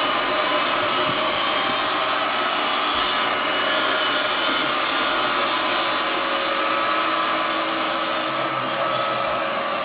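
Roomba robot vacuum running steadily, its motor and brushes making an even whirring hum.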